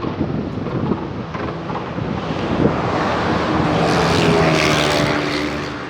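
A motor vehicle passing close by: its engine note and tyre noise swell over a couple of seconds, then fade with a slight drop in pitch. Wind rumbles on the microphone throughout.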